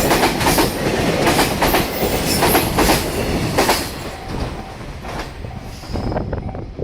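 Freight train wheels clattering hard over rail joints at speed, a rapid run of loud clacks from a long rake of Koki container wagons. About four seconds in, the clacks thin out and fade as the train moves away.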